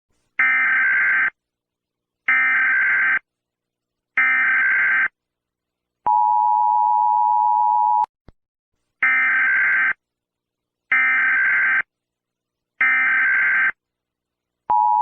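Emergency Alert System tones: three short, harsh digital data bursts of the SAME header about a second apart, then the steady two-tone EAS attention signal for about two seconds. Three more header bursts follow, and the attention tone starts again near the end.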